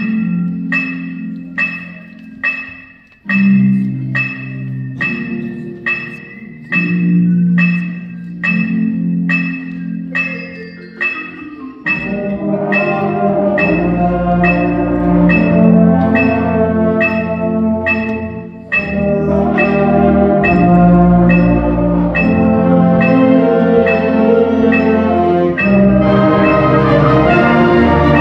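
Concert band playing: a mallet percussion instrument repeats evenly spaced notes, about two or three a second, over low held chords. About twelve seconds in, the full band comes in louder with brass and woodwinds.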